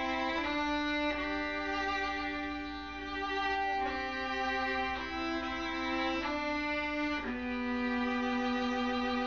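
Background music: a slow violin melody of long, held notes changing about once a second, settling on a long low note about seven seconds in.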